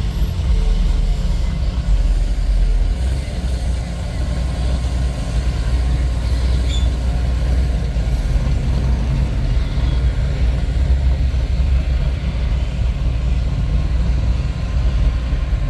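Chevrolet pickup truck pulling a loaded car trailer past at low speed: a steady low rumble.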